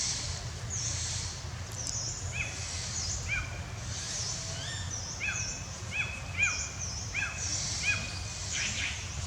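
Many short, high chirping animal calls, most dropping quickly in pitch and following one another several times a second, with a lower run of chirps joining from about two seconds in to near the end.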